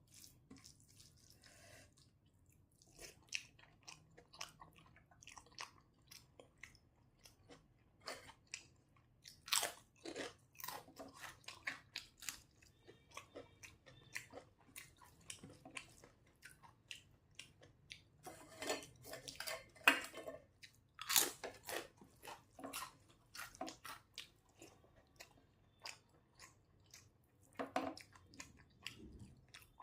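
Close-miked eating: chewing with crisp crunching bites, in two louder spells of crunching about a third and two thirds of the way through.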